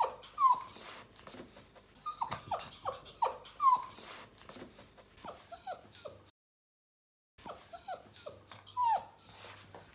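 Bernese mountain dog puppy whimpering in a run of short, high cries that fall in pitch. The cries break off for about a second past the middle, then resume.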